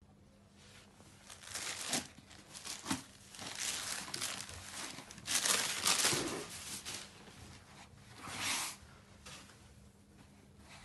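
Chiffon brasso saree and its wrapping being unfolded and smoothed by hand: a series of crisp rustles and crinkles, loudest about halfway through, then dying down near the end.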